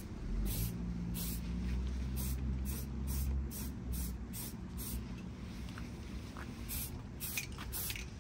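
Paint spraying onto a car's engine bay in short hissing passes, about two a second, with a pause of about a second and a half past the middle. A low steady hum runs underneath in the first few seconds.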